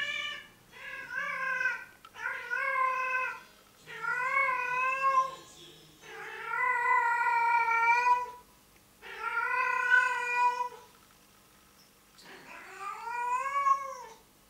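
Female domestic cat in heat giving her mating call: about seven long, drawn-out yowls in a row, each a second or two long, rising and then falling in pitch, with short pauses between them.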